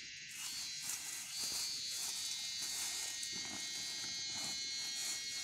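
Dense insect chorus, many steady shrill tones held together, with irregular rustling and crackling of dry grass being handled and bundled.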